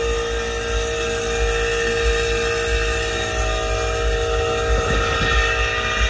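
Refrigerant vacuum pump running steadily, a constant hum with a low rumble as it evacuates the car's air-conditioning system.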